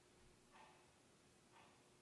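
Near silence: faint room tone with a low steady hum and a soft sound that repeats about once a second.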